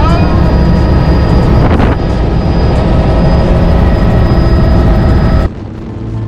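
Helicopter in flight: steady engine and rotor noise with a high turbine whine over it, cutting off suddenly near the end.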